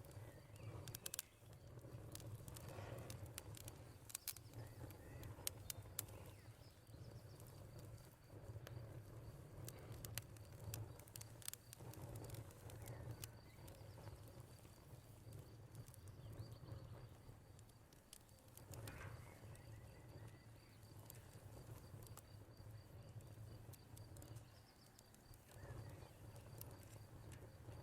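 Quiet wood fire crackling with scattered sharp pops, under a steady high cricket trill that comes in about a third of the way through, and a few bird calls.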